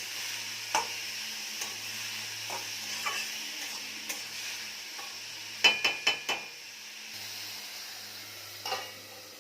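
Snake gourd sizzling in hot mustard oil in a pan, with a spatula stirring and knocking lightly against the pan. About six seconds in comes a quick cluster of four ringing metal clanks, after which the sizzling is a little quieter.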